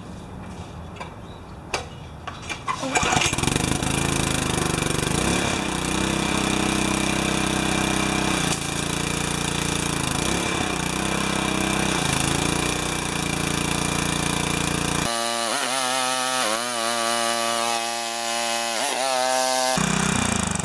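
Briggs & Stratton 4 HP vertical-shaft single-cylinder engine on a pressure washer, pull-started and catching about three seconds in, then running steadily with its note dipping briefly a few times as the pump is loaded.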